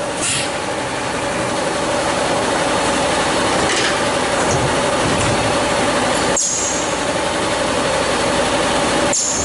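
One-step injection stretch blow moulding machine running: a loud, steady mechanical noise with a faint tone in it. Short high hisses come through, one just after the start and another about four seconds in.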